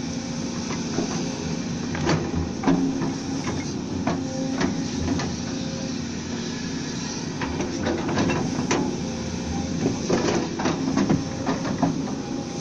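Volvo excavator working: its diesel engine running steadily under many irregular metallic clanks and knocks.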